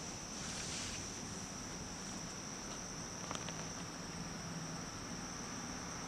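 A summer chorus of insects outdoors: a steady, high-pitched trill that holds unbroken.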